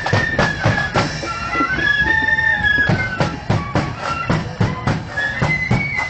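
A marching flute band playing a tune, the flutes carrying a high single-line melody over drums beating a steady march rhythm of about three to four strokes a second.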